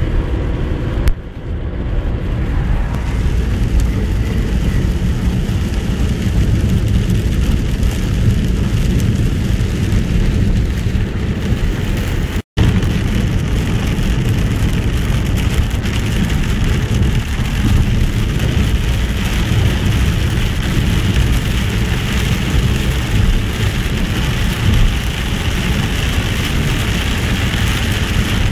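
Steady road and engine noise of a moving car heard from inside the cabin, with heavy rain hitting the roof and windscreen. The sound cuts out for an instant about halfway through.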